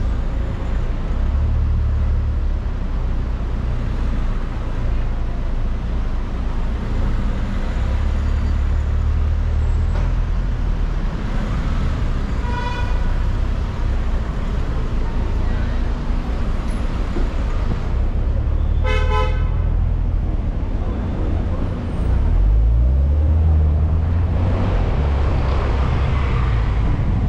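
Car driving through city traffic, with steady road and engine rumble. A faint horn toot comes about twelve seconds in and a louder, brief car horn honk about seven seconds later, and the rumble swells near the end.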